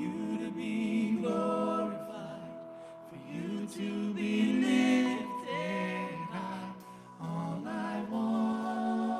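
Live worship band: singers holding long notes of a slow song over keyboard and acoustic guitar.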